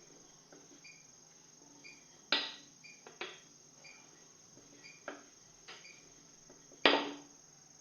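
A cricket chirping steadily, a short chirp repeating less than once a second, with sharp knocks cutting in: two loud ones about two seconds in and near the end, and a few lighter ones between.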